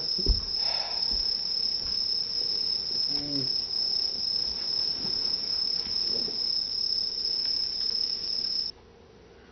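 Recording of crickets chirping, played on a stereo as a steady high chirring, which cuts off suddenly near the end when the stereo is switched off. A thump just after the start.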